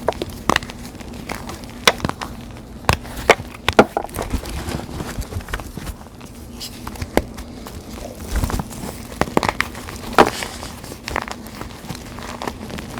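Dried gym chalk blocks set with leaves and dried flowers being crushed and crumbled: irregular sharp crunches and snaps with crackly crumbling between.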